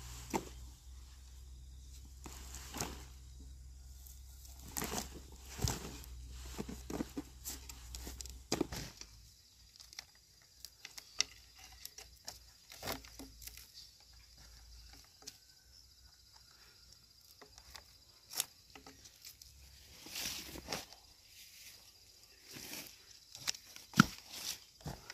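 Irregular rustling and crackling with scattered light knocks and clicks, one sharper knock near the end. A low steady hum runs underneath for the first third and stops.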